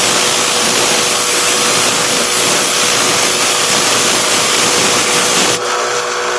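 Steel bayonet blade being ground on a powered sharpener: a steady harsh grinding over the machine's running hum. The grinding stops about five and a half seconds in while the motor keeps running.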